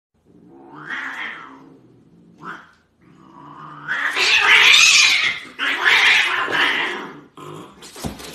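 A cat yowling. There is one drawn-out call about a second in, a short one, and then two long, loud yowls over the second half.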